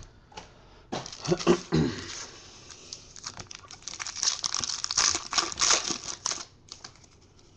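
Foil trading-card packs being torn open and crinkled by hand: a run of crackly crinkling, loudest in the second half, that stops shortly before the end.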